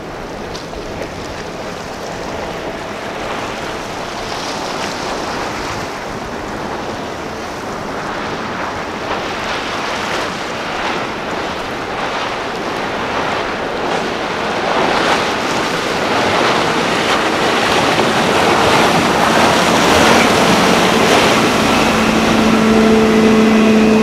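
Runabout-style motorboat running fast through the water: a rushing wash of water and hull spray that grows steadily louder as it approaches, with a steady engine drone coming in near the end.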